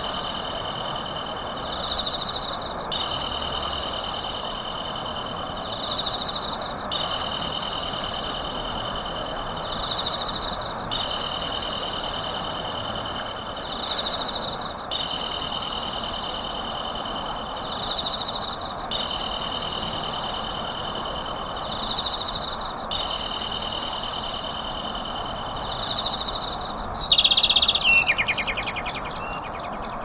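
Steady patter of hail and rain, overlaid with a chirping, trilling insect-and-bird track that repeats identically every four seconds like a loop. A louder burst of falling bird chirps comes near the end.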